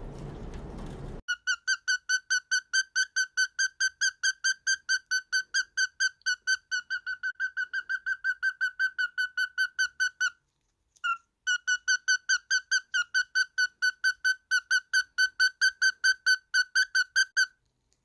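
A bird peeping: a fast, even run of identical short, high-pitched peeps, about five a second, broken once near the middle by a pause of about a second.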